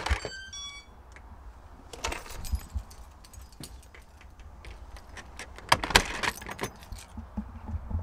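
A bunch of keys jangling together with the clicks and clunks of a front door's lever handle and lock as the door is opened, the loudest rattle coming about six seconds in. A brief falling run of short high tones sounds about half a second in.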